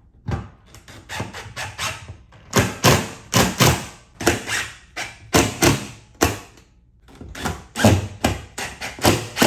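Cordless DeWalt impact driver hammering screws through a thin sheet-metal wall-thimble plate into drywall anchors. It runs in a string of short bursts, several a second, with brief pauses between them.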